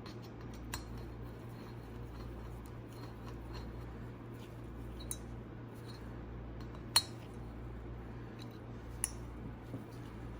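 Light metallic clicks and clinks of an Allen wrench working the rocker arm bolts on a bare cylinder head, a handful of separate ticks with one sharper clink about seven seconds in, over a steady low hum.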